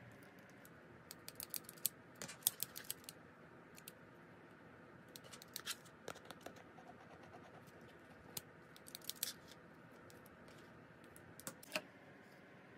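Small plastic toy nurse-set pieces handled by hand: scattered clusters of light, sharp clicks and taps as the toy scissors, a card and a little plastic bottle are moved and tapped.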